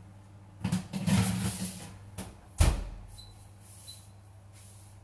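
A baking tray slid into a wall oven with a rattling scrape, then the oven door shut with a sharp thump about two and a half seconds in. Two short beeps follow as the oven is set.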